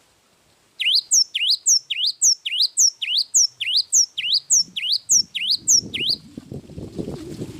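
A gelatik wingko singing a long, fast run of about eighteen sharp, downward-sweeping whistled notes, more than three a second, starting just under a second in and stopping about six seconds in. A low, rough sound comes in about five and a half seconds in and continues.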